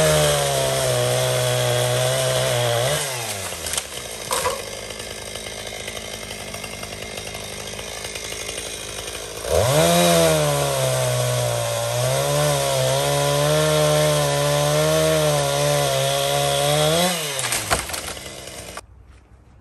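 Gas chainsaw cutting into a felled birch trunk. It is revved to full throttle twice, for about three seconds and then for about eight seconds, and drops back to a lower running note in between. The sound stops abruptly near the end.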